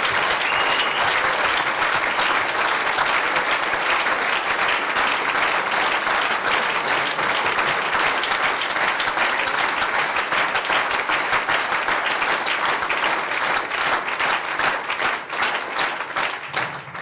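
Crowd applauding steadily, thinning near the end into more separate claps.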